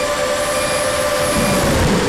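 A ZMR 250 racing quadcopter's four 2300 kV brushless motors and 5x4 props whining in flight. The whine dips in pitch and settles lower in the second half, with a brief low rumble near the end.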